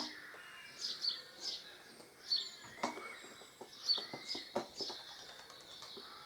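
Small birds chirping over and over in the background, with scattered sharp clicks and knocks from a windscreen's mounting clamps being worked onto a trike.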